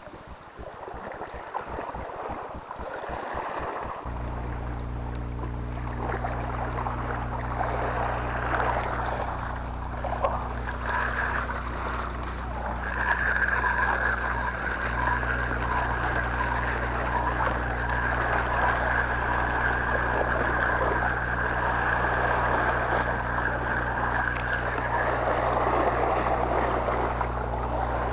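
A spinning reel is wound in against a hooked fish, over wind and sea noise. A steady low hum starts about four seconds in, and a thin high whine holds through the middle stretch.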